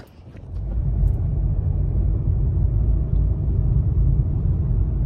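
A car driving: a steady low rumble of engine and road noise heard inside the cabin, building up over the first second and then holding steady.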